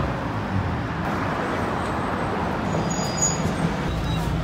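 Street traffic with a city bus engine running; the bus's low engine hum grows stronger near the end, as the bus is boarded.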